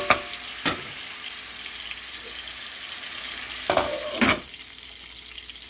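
Chicken pieces and sliced onion sizzling in a stainless steel pot, with a wooden spoon knocking against the pot twice in the first second. About four seconds in, a glass lid clatters onto the pot, and after that the sizzle is quieter and muffled.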